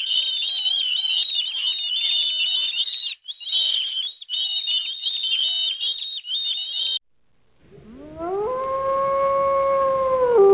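Many small birds chirping, a dense high-pitched chatter that cuts off about seven seconds in. After a short gap a dog starts to howl, rising in pitch and then holding one long note.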